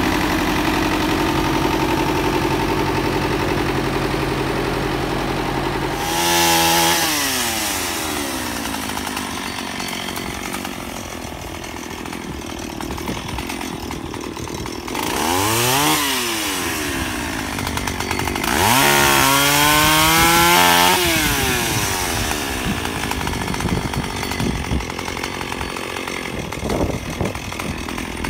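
Chainsaw idling steadily, then revved three times to cut tree branches, each rev rising and then falling back in pitch, the last held about two seconds.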